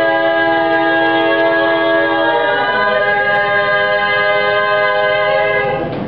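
Female four-part a cappella vocal quartet singing the song's final held chord. About two and a half seconds in the lowest voice slides down and the chord changes, then the new chord is held and all voices cut off together at the very end.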